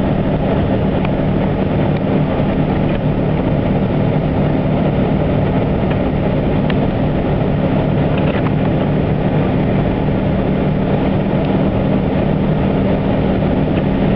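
Car driving on an expressway: steady engine and road noise with a constant low hum.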